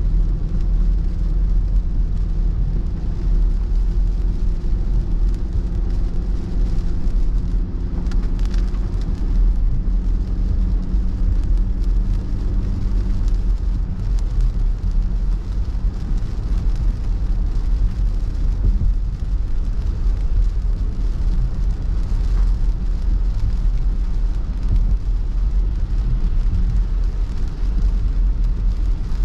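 Car cabin noise while driving in heavy rain: a steady low road and engine rumble with rain on the windscreen. A steady engine hum fades out about halfway through.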